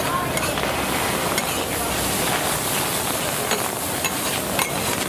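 Oysters and bean sprouts sizzling on a flat steel griddle, with a metal spatula scraping and tapping against the plate a few times.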